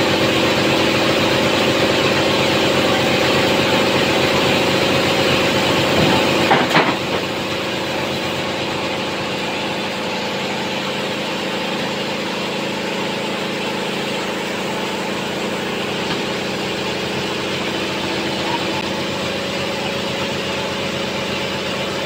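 Sawmill bandsaw's drive engine running steadily at an even pitch, with a few sharp knocks about six seconds in.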